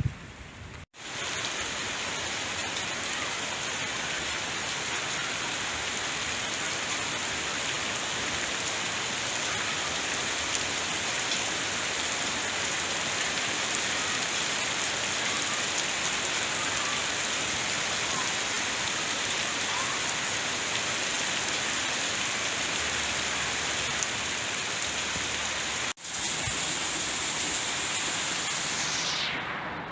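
Steady rain falling on a tent, a dense even hiss that starts about a second in and cuts out for an instant near the end.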